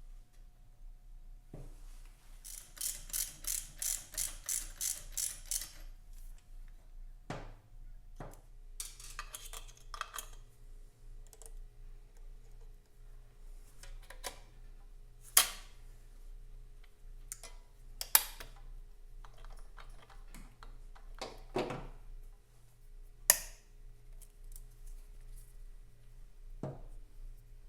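A ratchet spanner clicking in a quick run of about a dozen strokes, followed by scattered sharp metal clanks and taps of tools and parts, three of them louder than the rest in the second half.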